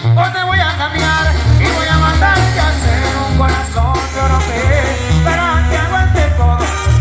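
Mexican banda brass band playing, a tuba carrying a steady pulsing bass line under wind melody lines.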